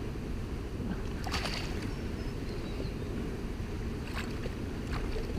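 Steady low rumble of wind and water around a small boat, with a few brief rustles and clicks, about a second in and again near the end, from hands working a lure free of a pike in a mesh landing net.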